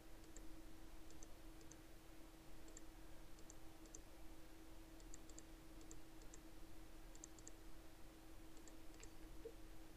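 Faint computer mouse clicks, some single and some in quick pairs or threes, scattered over a steady low electrical hum.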